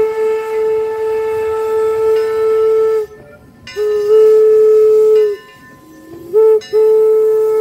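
Steam locomotive whistle blown in the long-long-short-long pattern of a grade crossing signal: two long blasts, a short toot about six seconds in, then a final long blast held on. Each blast is one steady, clear pitch.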